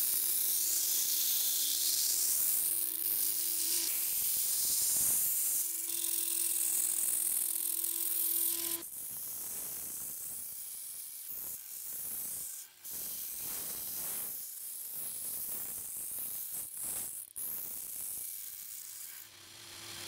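2x42 belt sander running, its abrasive belt grinding a red G-Carta handle scale against the steel tang with a steady hiss over a low motor hum. About nine seconds in the hiss drops abruptly and continues more quietly in short passes with brief breaks.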